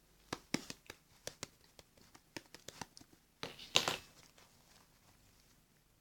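Something crinkly being handled and torn: a run of sharp crackles and small clicks, then a louder tearing rustle about three and a half seconds in.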